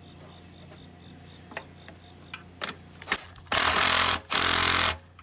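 A few light clicks, then a power drill driven twice in short bursts on a mower-engine bolt, without breaking it loose because it is not an impact driver.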